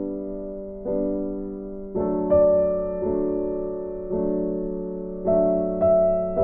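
Slow piano music, with notes and chords struck about once a second and left to ring out.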